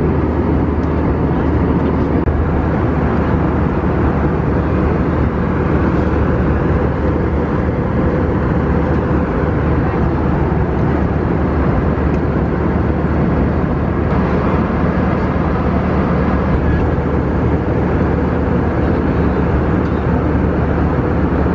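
Jet airliner cabin noise in cruise flight: a steady, even rush of engine and airflow noise with a constant low hum.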